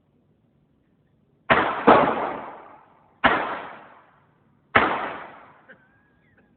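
Four gunshots from a small-calibre gun: two about half a second apart, then two more spaced about a second and a half apart. Each is a sharp crack followed by a fading, echoing tail.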